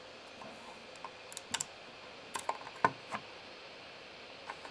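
Small scattered clicks and taps of fingers handling a freshly printed plastic fan guard on the printer's hot bed, the sharpest click just under three seconds in.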